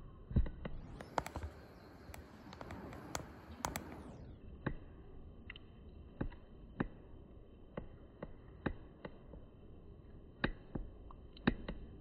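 Irregular sharp clicks and taps, about one or two a second, over a faint steady background hiss.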